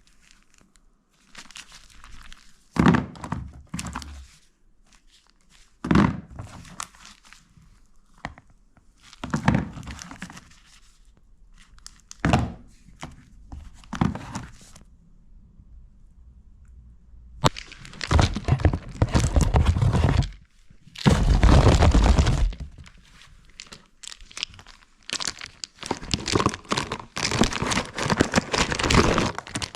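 Things being handled at close range: a string of separate knocks and thunks, then longer stretches of rustling and crinkling from a bit past the halfway point.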